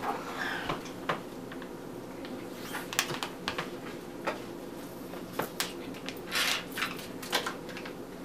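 Foil Capri Sun drink pouch crinkling and crackling in the hand as it is squeezed and drunk through its straw, a string of sharp crinkles with a longer rustling stretch about six and a half seconds in.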